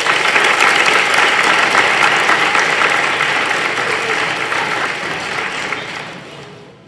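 Audience applauding, loud at first and dying away near the end.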